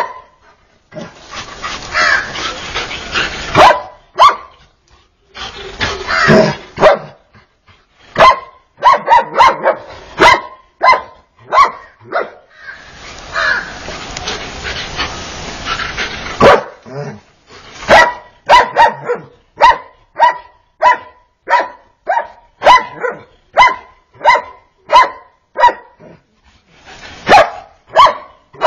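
German Shepherd-type dog barking repeatedly, with long stretches of harsh, rough noise between barks in the first half. From about halfway through, the barks come steadily, about two a second.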